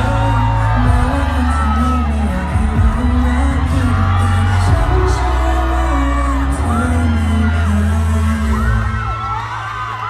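Pop music with a deep, sustained bass and a sung melody, with many voices screaming and whooping over it.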